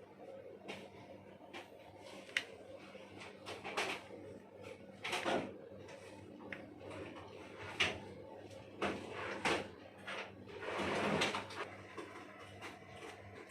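Scattered clicks, taps and scrapes of tools and small parts being handled on a repair bench, with longer scraping near the middle and a longer scrape about eleven seconds in, over a faint steady hum.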